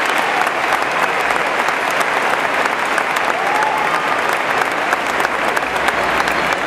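Large audience applauding steadily: dense, continuous clapping.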